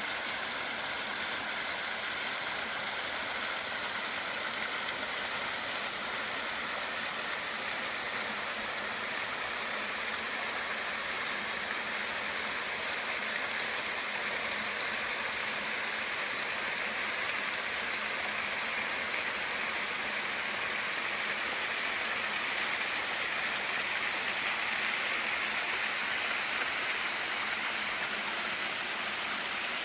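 Small mountain waterfall cascading over rocks: steady, even rushing water, mostly hiss.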